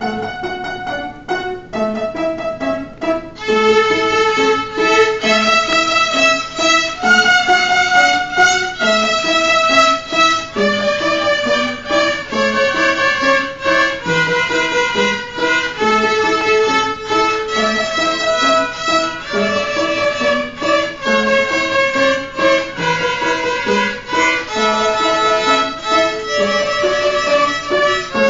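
A group of children's violins playing a melody together, accompanied by piano with regularly repeating lower notes. The violins grow fuller and louder a few seconds in.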